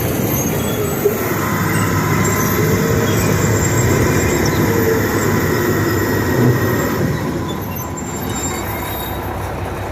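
Old International crawler bulldozer running and moving, its steel tracks clanking and squealing over the engine. The din eases somewhat about three quarters of the way through.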